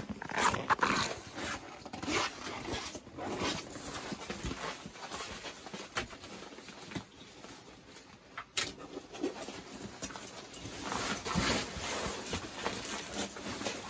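Rustling and scuffing of heavy winter clothing and gear being handled, with gloves set down on a table and a backpack shifted, plus a couple of sharp clicks.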